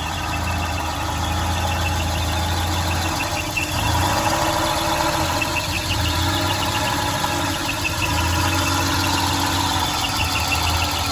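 Volvo 940 engine idling rough and shaking, its low note fading and swelling every few seconds: the fuel pressure regulator is leaking gasoline.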